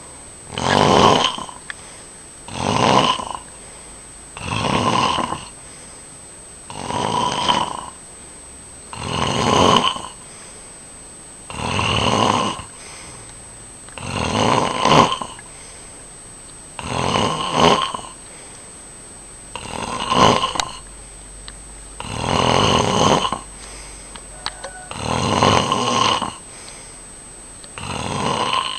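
Snoring in a steady rhythm: one snore every two to two and a half seconds, each lasting about a second.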